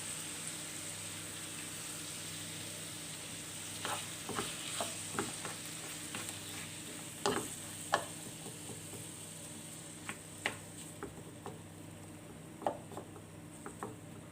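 Calamari sizzling as it sautés in butter in a frying pan: a steady frying hiss. From about four seconds in, a utensil stirring taps and clicks against the pan.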